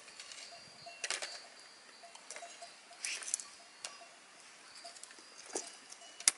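Dry twigs and branches snapping and rustling as sticks are handled and fed into a small, newly lit wood campfire, with scattered sharp cracks, the sharpest near the end.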